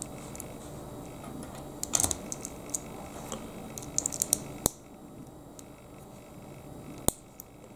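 Small hard-plastic clicks and taps of Lego minifigure parts being handled, pulled off and pressed together: a few clicks about two seconds in, a quick run of clicks around the middle, then single sharp clicks near the end.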